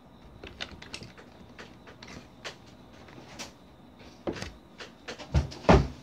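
Computer keyboard keys clicking irregularly, a few presses a second, with two heavier thumps near the end.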